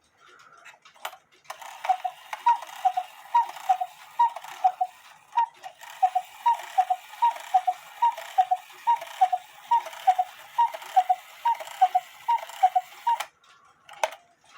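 HECO cuckoo clock's bellows whistles sounding the two-note cuckoo call, high note then lower, about a dozen times in quick succession, set off by pulling the clock's string; the newly fitted bellows are working. A click comes just before the calls start and another after they stop.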